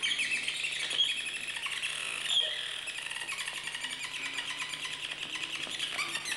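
Electronic feedback from piezo discs resonating in the mylar balloons of a robotic balloon instrument: a rapid, high flutter of squeaky tones, shaped by the player's hand touching the instrument, whose body acts as a variable resistor. A faint low tone glides slowly upward in the second half.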